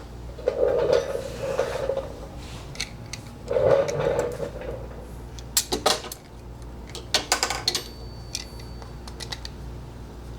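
TIG torch parts being handled and fitted together: two rasping scrapes, then several sharp clicks of small hard parts.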